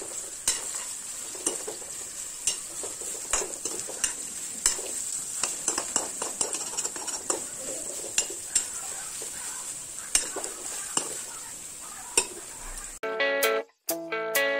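Chunks of food sizzling in hot oil in a steel kadhai while a spatula stirs them, with irregular scrapes and taps of the spatula on the pan. About a second before the end it cuts off suddenly to plucked guitar music.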